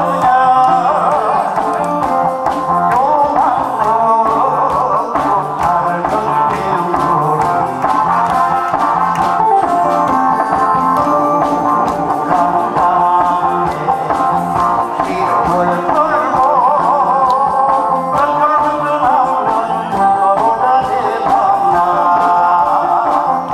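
A man singing a song into a microphone over instrumental accompaniment, amplified through PA speakers, with a wavering melody line held throughout.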